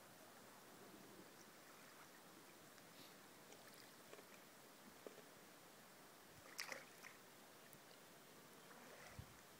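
Near silence: faint lapping of water at the shore, with a few small clicks and one brief louder sound about two-thirds of the way in.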